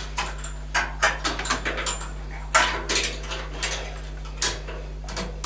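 Irregular small metallic clicks, taps and scrapes of hands fitting a heating thermostat's sensing bulb and its small metal clip onto a copper heating pipe inside an open gas boiler, over a steady low hum.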